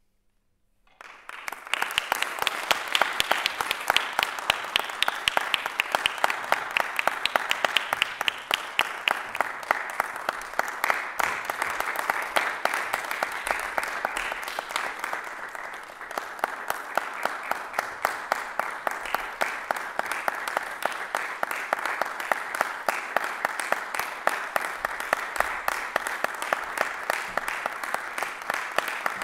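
Audience applause: many hands clapping, starting suddenly about a second in after near silence and going on steadily.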